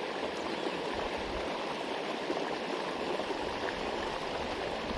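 Creek water flowing: a steady, even sound of running water.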